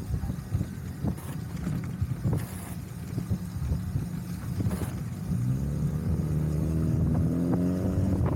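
Ride noise from a moving vehicle: low rumble and wind with scattered small knocks. About halfway in, a motor whine rises in pitch and then holds steady, as the vehicle speeds up.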